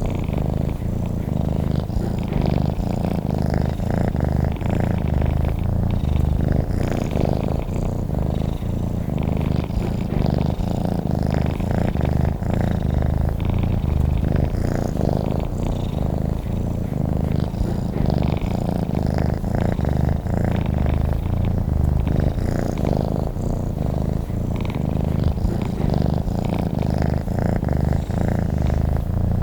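A cat purring steadily, without a break, in a low, even pulse.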